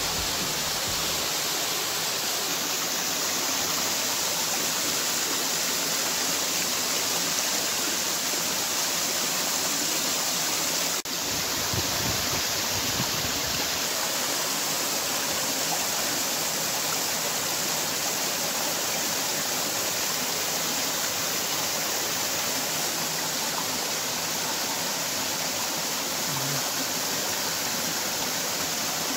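Small waterfall splashing into a pool: a steady rush of falling water, with a brief dip about eleven seconds in.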